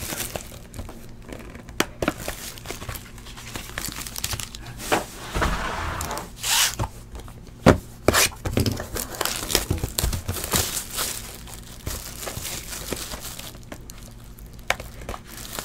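Foil trading-card pack wrappers being torn open and crinkled by hand: irregular sharp crackles throughout, with a longer tear around five to six seconds in.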